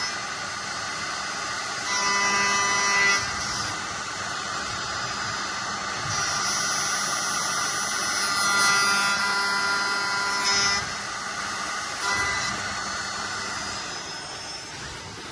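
High-speed spindle of a CNC lock-milling machine running with a steady high whine, growing louder in several stretches as the cutter works into an aluminium door profile.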